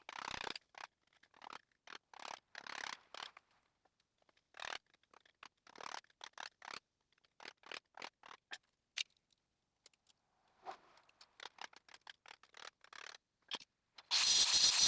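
A blade sawing at a seized steel suspension bolt: short, irregular scraping strokes with brief pauses between them. About fourteen seconds in, a much louder power tool starts running with a high whine.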